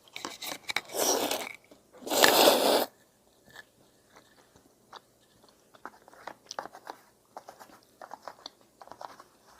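A person eating udon with rice-cake pieces close to the microphone: two loud bursts of mouth noise about a second apart, then soft, irregular chewing clicks.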